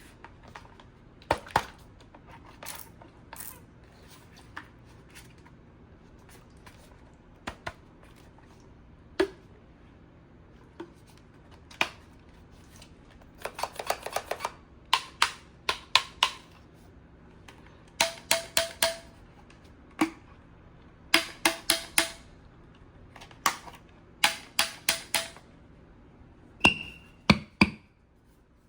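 Sharp plastic clicking from a toy gun being handled and worked: scattered single clicks at first, then quick runs of four to six clicks several times over, with a short tone near the end.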